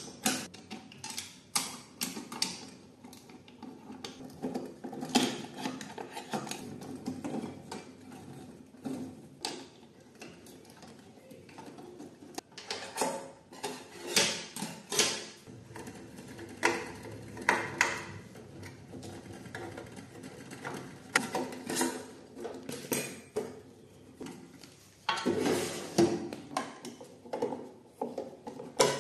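Sheet-metal panels and parts of a small coffee roaster being handled and fitted back together by hand: irregular clicks, knocks and metallic rattles, with a louder clatter about 25 seconds in.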